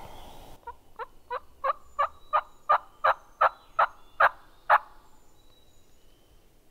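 Turkey yelping: a run of about a dozen short, evenly spaced yelps, about three a second, getting louder before breaking off about five seconds in.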